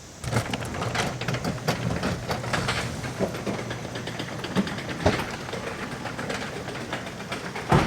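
2018 Subaru WRX STI's turbocharged 2.5-litre flat-four starting about a third of a second in and then idling, with a sharp knock near the end. It is the first start on a freshly loaded tune, with the engine still cold.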